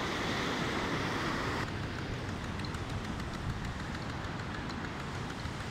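Muddy canal water rushing and churning over a canal fall under a small bridge, a steady, loud noise of water. About one and a half seconds in, the brighter hiss drops away and a duller rush remains.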